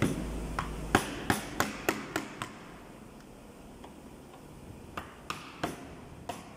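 PVC glazing beads being tapped into the window frame to lock the glass in: sharp plastic knocks, about three a second for a couple of seconds, a pause, then another run of knocks near the end.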